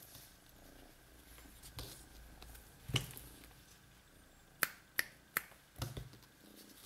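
A few sharp taps and knocks as a hand plays with a cat on a tabletop: one knock about three seconds in, then three quick clicks about half a second apart and a duller thud near the end.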